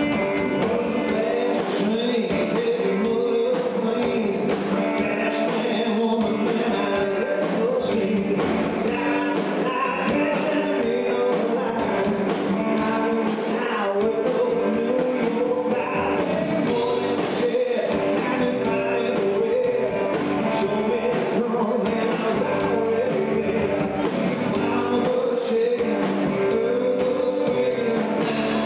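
Country-rock band playing a song: singing over guitars and a steady beat.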